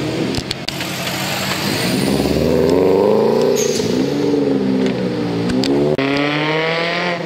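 A car engine revving as the car accelerates away. Its note climbs to a loud peak about three seconds in, drops, then rises again near the end.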